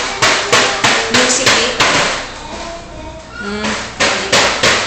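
Rhythmic sharp strikes, about three a second, in two runs with a pause of a second or so between them. Each strike rings briefly.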